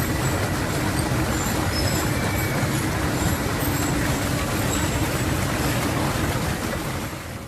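Steady rushing noise of a waterfall, fading out near the end.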